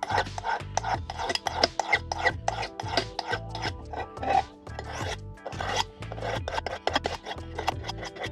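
Rapid, repeated rasping strokes of metal being rubbed against an abrasive surface, several a second, as in sharpening or filing.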